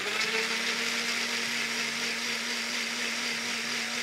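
Personal bullet-style blender running at a steady pitch as it purées peeled tomatoes. The motor whirs on, starting abruptly as the cup is pressed down onto the base.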